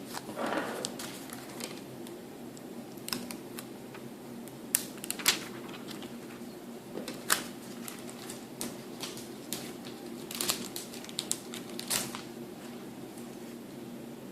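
Scattered light clicks and taps of a Samsung Galaxy S3 smartphone and a plastic screen protector being handled, with a few louder clicks, over a faint steady hum.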